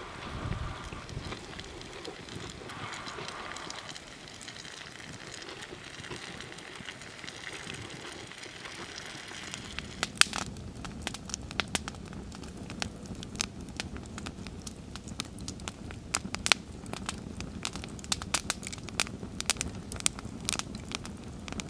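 Open wood fire crackling. Softer for the first half, then sharp, irregular pops come thick and fast from about halfway through, over a low, steady rush of flame.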